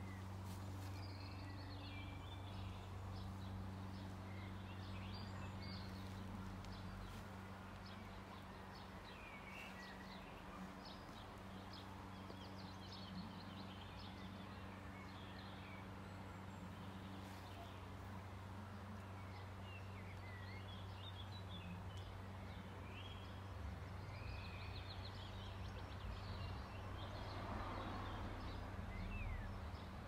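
Background birdsong in a garden: several small birds chirping and trilling in short, scattered phrases, faint, over a steady low hum.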